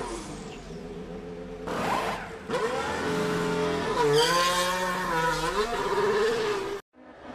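Racing car engine revving, its pitch rising and falling several times, with a rushing whoosh about two seconds in. It cuts off abruptly near the end.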